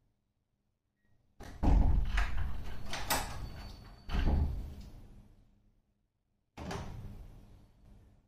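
Door and lock being worked: a run of metal clacks and clunks about a second and a half in, a second clunk about four seconds in and a third near the end, each ringing and dying away.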